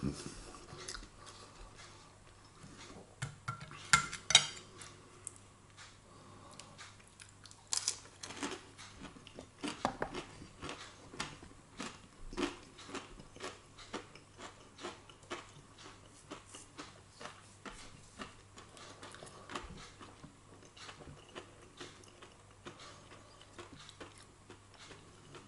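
Metal knife and fork clinking and scraping on a ceramic plate while food is cut and picked up, in many short, irregular clicks, a few louder than the rest.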